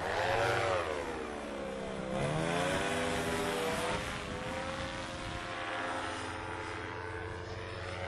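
Paramotor engine and propeller running, the pitch rising, dipping and rising again as the throttle is worked, over a steady rush of wind.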